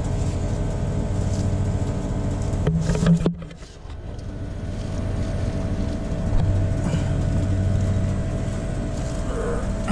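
Steady motor hum with several even tones in it. About three seconds in, a short cluster of knocks and scrapes as the old hose bib's pipe is worked in its hole through a block wall.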